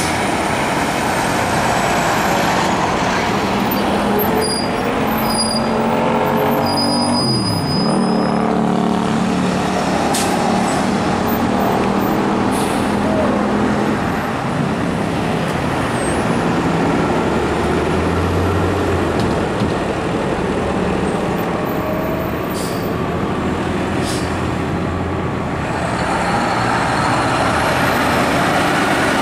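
Heavy garbage trucks driving past, their engines running under load. About eight seconds in, one engine's note drops sharply. Several short air-brake hisses come through the engine noise.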